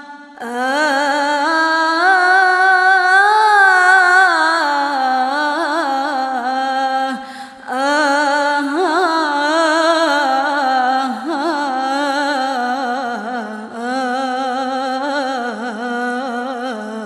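A woman singing an Arabic devotional song (sholawat) in long, melismatic phrases with wavering ornaments, with a short break for breath about seven and a half seconds in.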